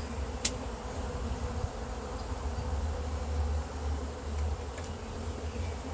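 Honeybees buzzing in a steady hum around an opened hive during a frame inspection, with one sharp click about half a second in.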